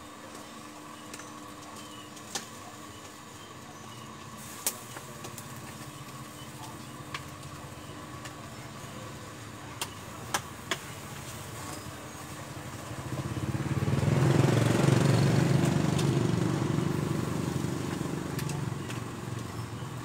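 An engine vehicle passes close by: its sound swells from about two-thirds of the way in, peaks, then fades over a few seconds. Before it there is a steady low hum and a few sharp clicks.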